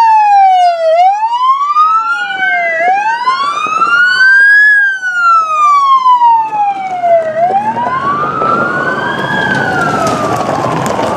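Two emergency vehicle wail sirens sweeping slowly up and down out of step with each other. Engine and road noise grows under them in the second half as the vehicles drive past.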